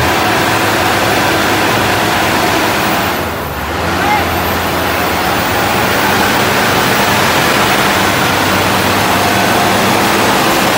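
A loud, steady rushing noise with a vehicle's engine running and a crowd of men's voices. The noise drops briefly about three and a half seconds in.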